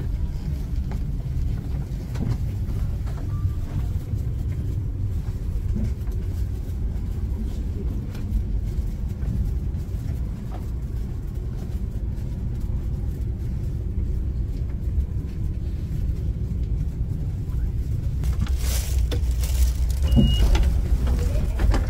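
Steady low rumble of an SRT high-speed train carriage in motion, heard from inside the cabin, growing louder near the end. A brief high tone sounds shortly before the end.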